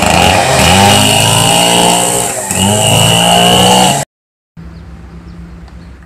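Two-stroke chainsaw running hard as it cuts through the branch of a fallen tree; its pitch dips briefly about two seconds in, then climbs back. It cuts off abruptly after about four seconds, leaving a much quieter low steady hum.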